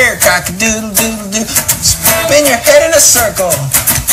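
Upbeat song-and-dance music with a steady beat and a sliding melody line.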